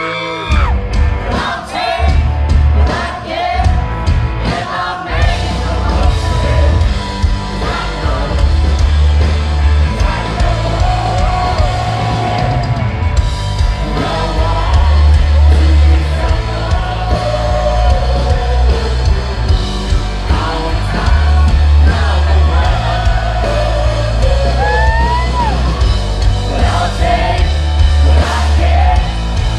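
Live rock band playing loudly, a male singer over electric guitar, bass and drums. The full band, with heavy bass and drums, comes in just after the start.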